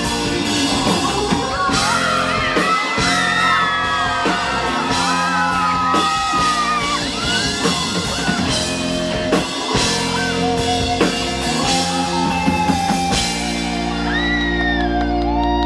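Live rock band playing loudly in a club, with many voices singing and yelling over the drums and guitars. Near the end the drums stop and the band holds a ringing chord.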